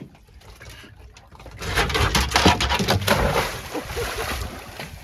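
Water splashing and rushing along a sailing trimaran's hulls as it moves under way. It is faint at first, grows louder about a second and a half in, and eases off near the end.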